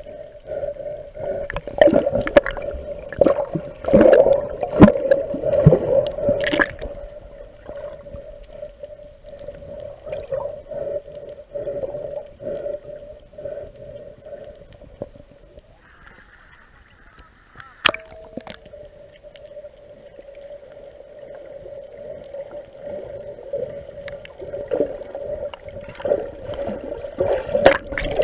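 Muffled underwater sound heard through a camera held below the surface: water sloshing and gurgling, a steady hum and scattered knocks. A louder rush of bubbling water comes near the end.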